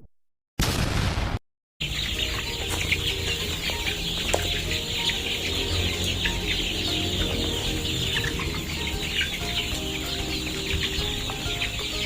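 A large flock of broiler chickens clucking and peeping all at once, many overlapping calls over a low steady hum.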